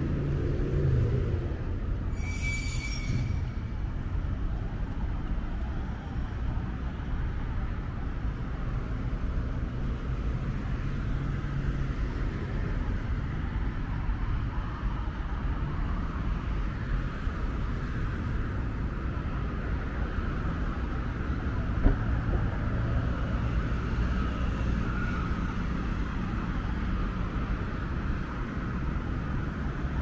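Road traffic passing on a multi-lane road: a steady rumble of car engines and tyres. A brief high-pitched sound cuts through about two seconds in, and there is a single sharp click later on.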